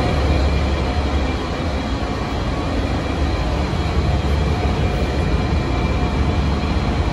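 Cabin noise inside a 2006 NABI 40-LFW transit bus, its Cummins ISM inline-six diesel running with a steady low rumble and a hiss of road and body noise.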